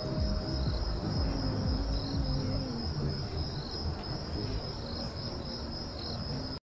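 Night-time crickets chirping, a steady high trill with short repeated chirps, over a low outdoor rumble. The last of a doorbell chime fades out in the first half second, and all sound cuts off abruptly near the end.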